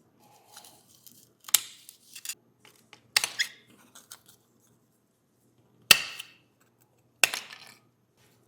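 Sharp clicks and clinks of small hand tools and parts being handled during work on a die-cast metal model car, with four louder clacks among lighter ticks.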